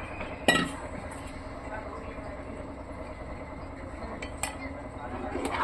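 Pot of urad dal porridge boiling on a gas stove, a steady low bubbling hiss, with one sharp clink of a utensil against the pot about half a second in and a couple of faint ticks later.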